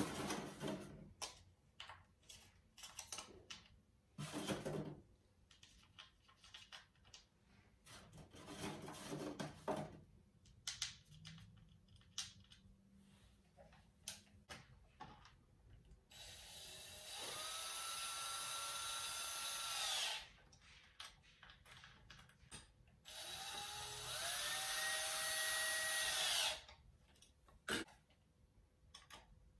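Cordless drill driving screws into a ceiling fan blade in two runs of about four and three seconds, the motor whine rising as each run starts. Before them come light clicks and taps of small parts and screws being handled.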